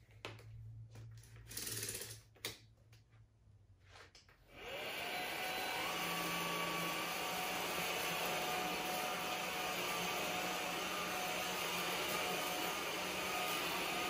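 A few quiet handling clicks, then about four and a half seconds in the PRETTYCARE cordless stick vacuum's brushless motor switches on and spins up quickly to a steady rush of suction with a whine in it, running in average mode.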